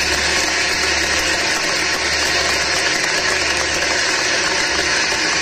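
Audience clapping and cheering, loud and steady.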